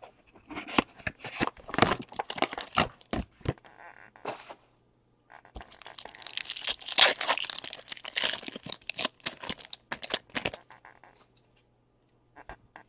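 Trading card pack being torn open by hand: a foil wrapper tearing and crinkling in many short crackling strokes, in two busy stretches, the second denser, then handling dies away near the end.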